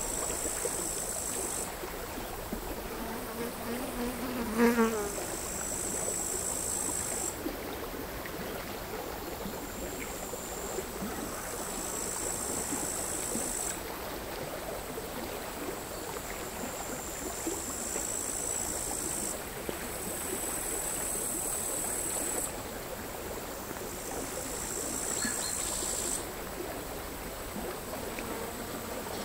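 Crickets singing in high buzzing stretches of a few seconds that start and stop, over the quiet, irregular lapping of small sea waves on a stony shore. About four and a half seconds in, a child's short shout.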